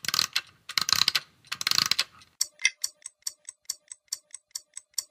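Mechanical ratcheting, three rasping bursts like a mechanism being wound, followed by steady sharp ticking about four times a second.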